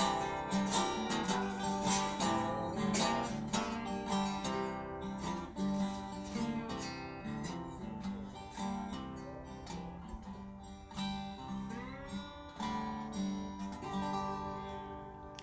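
Blues song's instrumental ending: guitars strumming and picking notes, with a few bent notes, slowly getting quieter as the song winds down.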